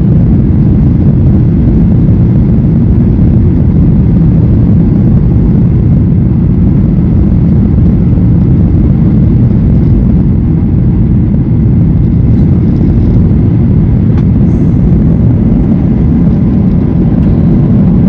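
Loud, steady low rumble of engine and airflow noise inside a Boeing 737 airliner's cabin during the landing approach.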